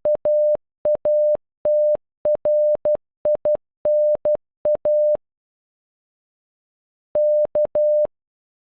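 Morse code beeps in a single steady mid-pitched tone spelling out KATRINA (-.- .- - .-. .. -. .-) at normal speed. After a pause of about two seconds, the letter K (dash-dot-dash) sounds once on its own.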